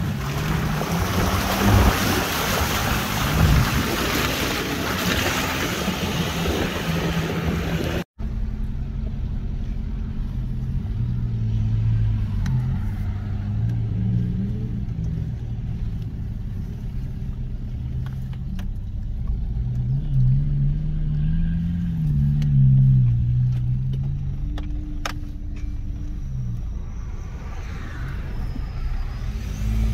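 An off-road 4x4's engine working under load, its pitch rising and falling with the throttle. For the first eight seconds a loud hiss lies over it; after a sudden cut the engine is heard on its own, with a few faint clicks.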